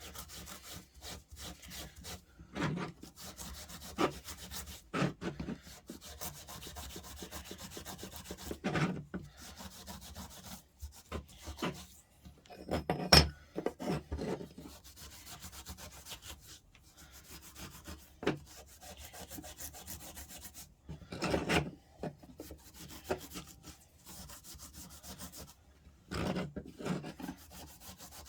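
Cloth rubbing by hand over a metal part to clean it with acetone, in irregular wiping strokes, with a sharp knock about thirteen seconds in.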